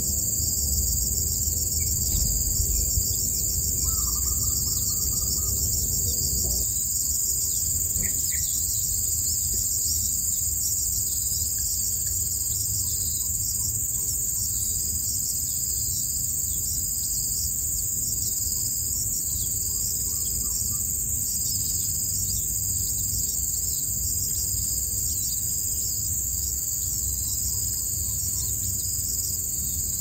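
Steady, high-pitched chorus of insects, likely crickets, over a low rumble. A few faint, brief bird chirps come through, one about four seconds in and one about eight seconds in.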